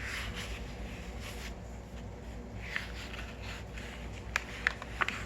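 Quiet room tone with a steady low hum, and a few short clicks near the end.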